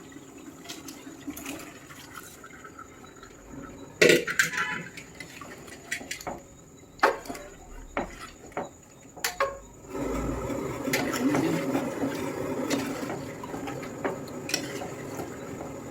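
Metal utensils and pots knocking and clinking during cooking, a scattering of sharp knocks. From about ten seconds in, a steady rush of liquid sloshing or pouring takes over.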